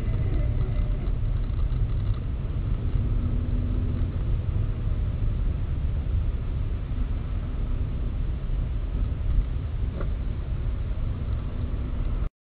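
Car driving on a road, heard from inside the cabin: a steady low rumble of engine and tyre noise. It cuts off suddenly near the end.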